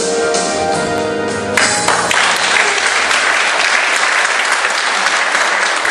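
A choir with electronic keyboard holds the last chord of a song; about a second and a half in, the audience breaks into applause, which goes on.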